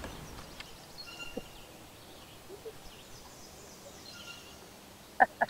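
Quiet outdoor lake ambience with a faint bird call, a short steady whistle heard twice: about a second in and again past four seconds. Just before the end come a few sharp, loud knocks.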